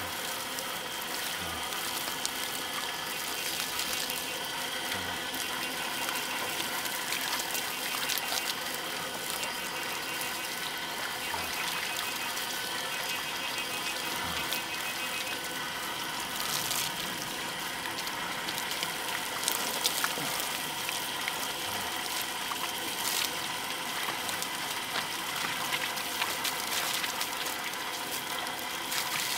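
Water running steadily from a garden hose and splashing over a person's shoulders and back onto the ground, with a few faint knocks.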